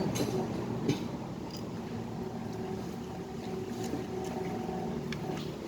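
A steady low motor hum with a few faint light clicks.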